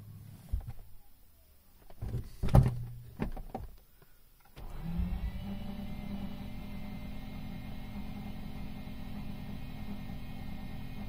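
Mazda RX-8's Renesis two-rotor engine being cranked by its starter motor. After a few loud knocks, the starter spins up about four and a half seconds in and whirrs steadily without the engine catching: a no-start, the car already de-flooded without success.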